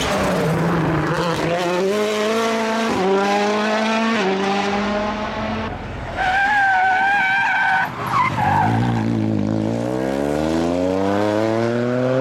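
Rally car engine accelerating hard, pitch climbing and dropping back through several quick upshifts. Mid-way comes a brief steady squeal from the tyres through a corner. Near the end the engine pulls up again in one long, rising run.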